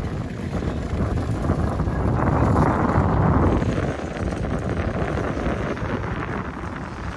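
Strong sea wind rumbling on the microphone, with waves washing against the rocky shore. The noise swells louder for a second or so around the middle.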